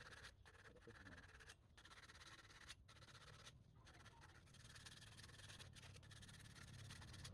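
Near silence: a faint steady hiss that drops out briefly several times.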